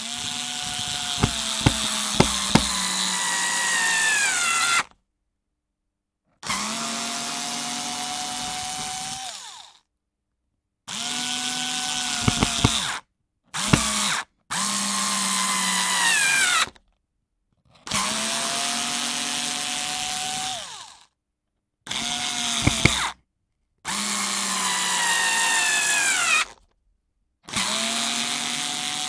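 Cordless electric screwdriver motor run in about nine separate bursts of one to five seconds with short silences between, a steady whine in each that falls in pitch as the motor winds down. A few sharp clicks sound during some of the runs.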